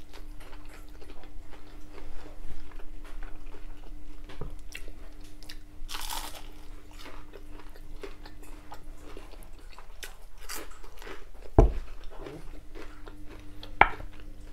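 Close-up eating sounds: crunching bites into crisp battered cod bites, with chewing in between. A single dull thump comes about three-quarters of the way through.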